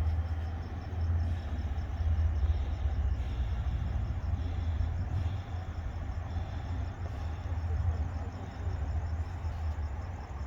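Crickets chirping steadily over a low, continuous rumble, with no firework bangs.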